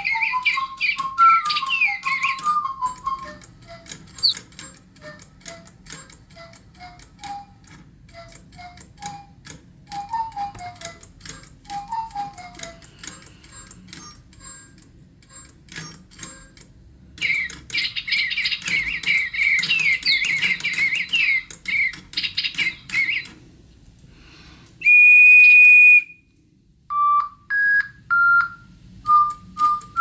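DigiBirds Breeze and Crystal toy birds singing: bursts of fast electronic tweets and chirps alternate with slower whistled tune notes, and one long steady whistle comes near the end, over rapid clicking.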